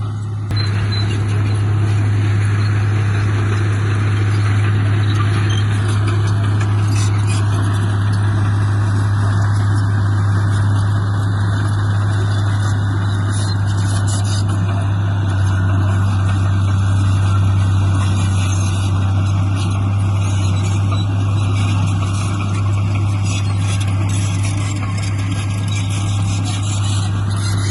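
Heavy construction machine's diesel engine running steadily with a loud low drone.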